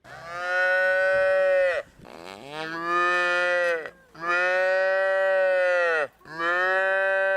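A cow mooing four times, each a long, drawn-out call of about two seconds with short pauses between.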